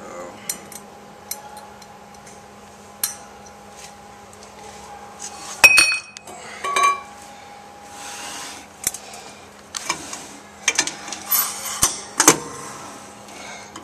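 Metal clinks and clatter as a replaceable suction filter-drier core and its spring are handled and set down into the steel drier shell, with one bright ringing clink about six seconds in. A steady hum runs underneath.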